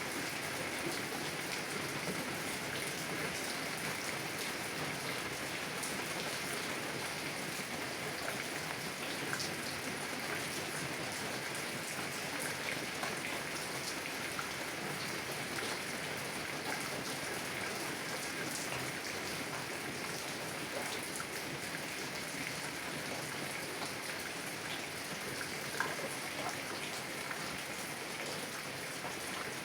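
Heavy rain falling steadily on a car window, a dense even patter with single drops ticking out through it and one sharper drop near the end.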